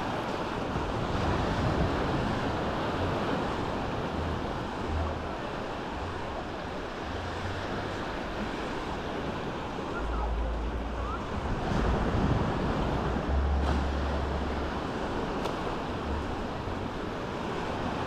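Small sea waves washing up on a sandy beach, swelling and easing in a steady hiss, with wind rumbling on the microphone.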